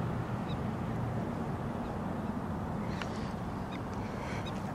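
Prairie dogs giving several short, high chirps scattered through, over a steady low rumble.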